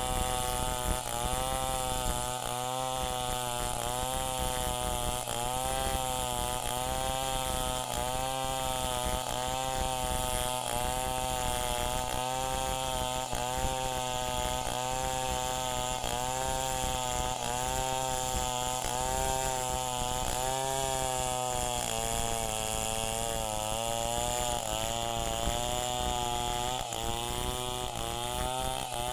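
Chainsaw running and cutting wood, its engine pitch dipping and recovering about once a second.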